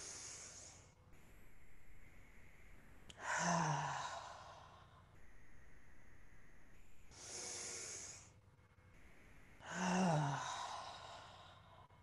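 A woman's slow, deep breathing in a guided breathwork exercise, close to the microphone: two rounds of a quieter inhale followed by a louder, audible exhale that ends in a low, falling sigh.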